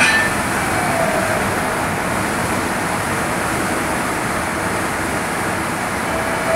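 Steady road noise of a car driving, tyres and engine heard from inside the cab, running at a constant level.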